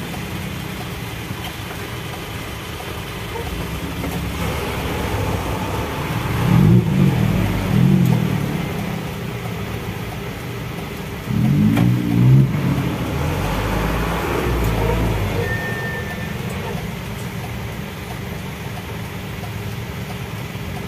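Truck engine running, heard from inside the cab in slow traffic, with a low rumble and a few louder surges as it picks up, around a third of the way in and again past the middle.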